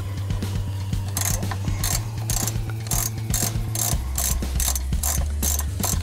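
A hand ratchet loosening screws in a minivan dash: quick repeated clicking strokes, about two or three a second, starting about a second in. A steady low hum runs underneath.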